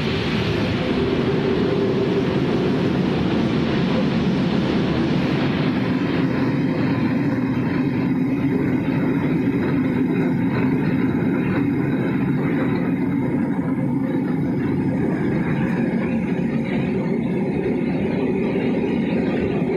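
Corn flakes extrusion production line machinery running: a steady, dense mechanical rumble and hum, its hiss thinning about six seconds in.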